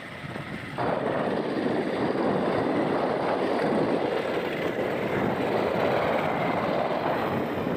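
Motorbike running on the move, a steady rushing noise that jumps louder about a second in and then holds.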